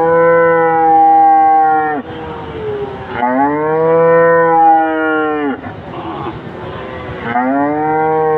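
Cow mooing: three long, drawn-out moos in a row, each about two and a half seconds at a steady pitch, with a pause of about a second between them.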